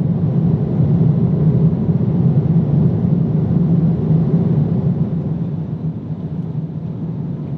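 Steady cabin noise of a Boeing 787-10 in cruise flight: a deep, even rumble of engines and airflow heard from an economy seat, easing slightly in level in the second half.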